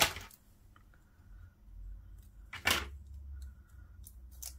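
Objects being handled and set down on a craft work table: a sharp clack at the start and another about two and a half seconds later, with a low handling rumble between them.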